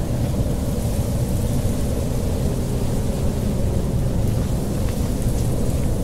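Strong wind blowing across the microphone: a steady, loud low rumble, with a few faint rustles near the end.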